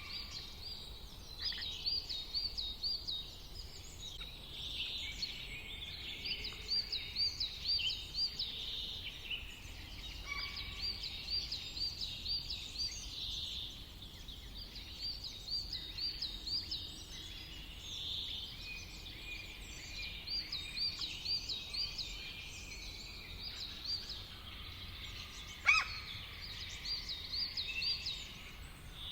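Several wild birds singing, a dense chorus of high, rapid chirping phrases of repeated notes over a faint steady background hiss. Near the end one sharp, louder call stands out.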